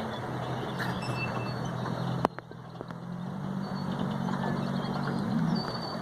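Mallard duck sneezing: a short, sharp burst about a second in and a very sharp click a little after two seconds. Under it runs a steady low engine hum.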